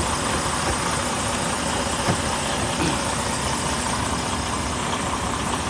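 Semi truck's diesel engine idling steadily, with a single light knock about two seconds in.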